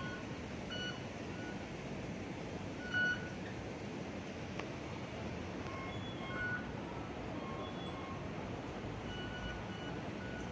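Short electronic beeps from MTR fare-gate Octopus card readers as passengers tap through, a dozen or so at differing pitches, the loudest about three seconds in, over the steady hum of a busy station concourse.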